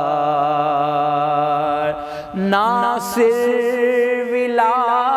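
A man's voice chanting a devotional Urdu recitation in slow, drawn-out notes. A long held note ends about two seconds in, and after a short breath a new line begins on another long, wavering note.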